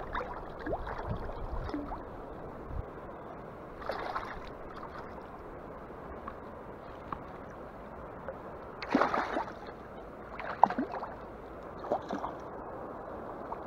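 A hooked nase thrashing and splashing at the water's surface in several short bursts, the biggest about nine seconds in with a sharp smack just after, over the steady rush of the river current.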